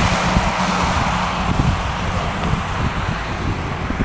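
Boeing 737-800 on final approach, its two CFM56-7B jet engines giving a steady jet hiss with a low hum that fades about halfway through, and wind buffeting the microphone.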